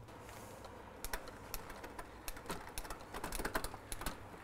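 Mountain bike's Shimano drivetrain turning in a work stand, the rear wheel spinning: the chain runs over the cassette and rear derailleur with irregular light clicks and ticks, several a second.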